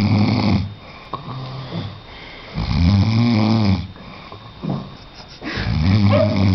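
A man snoring: three deep, drawn-out snores about three seconds apart, each lasting about a second, with quieter breathing in between.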